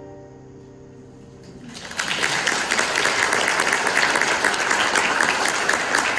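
The last chord of a piano, strings and trumpet ensemble fades out, then about two seconds in an audience breaks into applause that keeps going, steady and loud.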